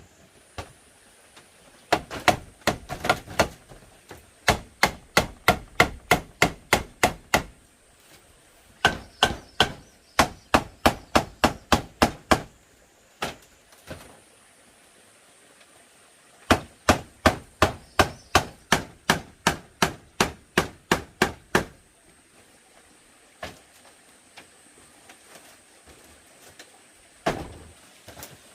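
Quick runs of sharp blows from a hand tool on bamboo, about four a second, with short pauses between the runs. Only a few scattered knocks come near the end.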